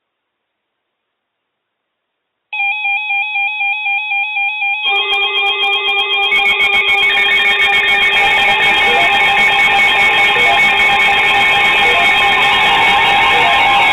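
Several weather alert radio receivers sounding their electronic alarms, activated by a flash flood warning. One fast warbling alarm starts about two and a half seconds in, and more alarms join about five seconds in, layering into a loud, continuous beeping.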